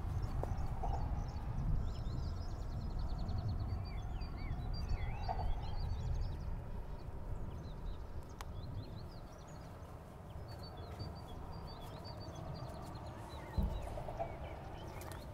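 Small birds chirping and trilling outdoors, with quick repeated trill runs and scattered chirps throughout, over a steady low rumble. A single low thump comes near the end.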